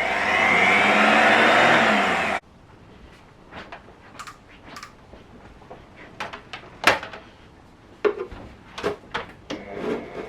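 Handheld power tool's electric motor running loudly for about two and a half seconds, its pitch swelling and sagging, then cutting off abruptly. After that come scattered knocks and clicks of the tool and box being handled.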